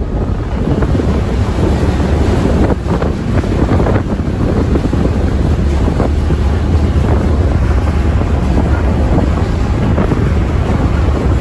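Ferry's engines running with a steady low rumble, mixed with rushing water and wind buffeting the microphone.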